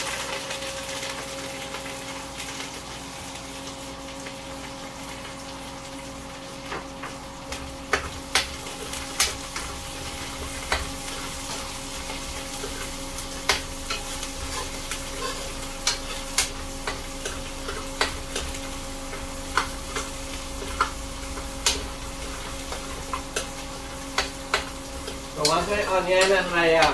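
Onion, curry leaves and herbs sizzling in hot oil in a pot, stirred with a spoon that clicks and scrapes against the pot now and then, over a steady hum from a range-hood fan.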